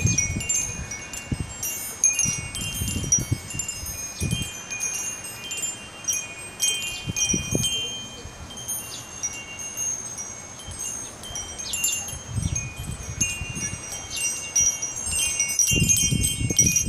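Wind chimes ringing without pause in gusty wind, many high notes struck again and again and overlapping. Gusts buffet the microphone with uneven low rumbles, heaviest near the end.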